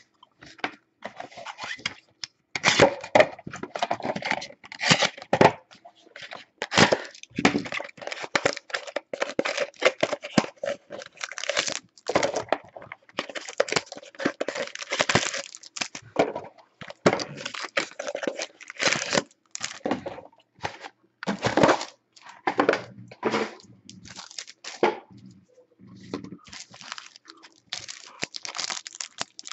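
Wrapper of a 2012 Panini Absolute Football trading-card pack being torn open and crinkled by hand: a dense run of crackles and rustles with a few short pauses, as the cards inside are handled.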